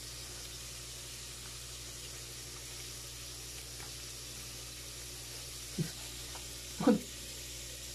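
Steady background hiss with a low mains hum. Near the end come a brief low sound and a short sound of a voice.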